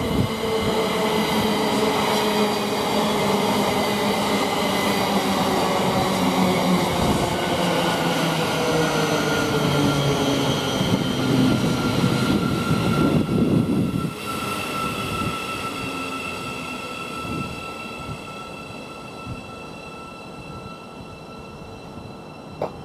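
Siemens Class 700 Desiro City electric multiple unit arriving and braking to a stop at the platform: its traction whine falls in pitch as it slows, with wheel and brake noise. About fourteen seconds in, the running noise drops away, leaving a steady high-pitched hum from the standing train.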